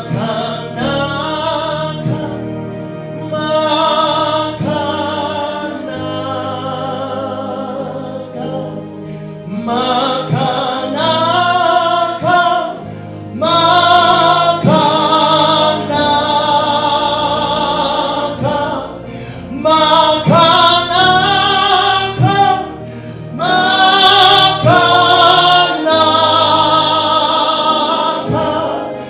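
Gospel worship singing in long held phrases with vibrato, over a sustained keyboard accompaniment.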